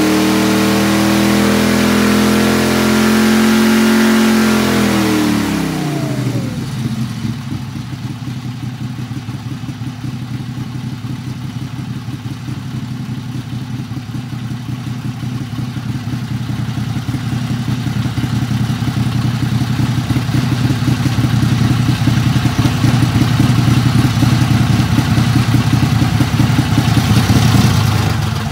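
Briggs & Stratton Vanguard V-twin engine on a dyno, pulling hard at high rpm. About five seconds in its pitch falls steeply as it comes off the pull, and it settles into a lumpy, pulsing idle that grows louder later on and fades at the very end. The pull was a clean one, not breaking up at the top.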